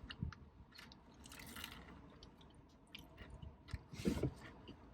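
Person chewing and biting food close to the microphone: scattered crunches and wet mouth clicks, with a louder bite about four seconds in.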